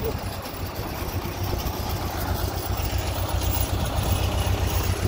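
GMC General fuel truck's diesel engine idling cold, a steady low rumble, with the PTO engaged to drive the fuel pump.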